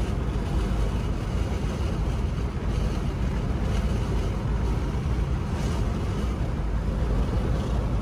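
Steady road noise of a car driving at highway speed, heard from inside the cabin: an even low rumble of tyres and engine.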